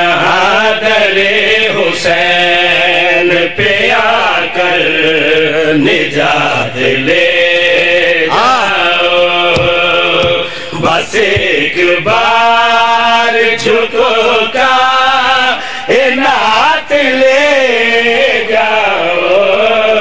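Men chanting a Shia devotional qaseeda in long, wavering held notes, amplified through microphones.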